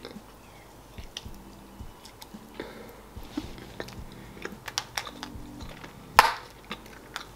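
Small clicks and crinkles of the plastic toy capsule from a Chupa Chups chocolate egg being handled and opened, with one sharper crackle about six seconds in, and soft chewing of chocolate between.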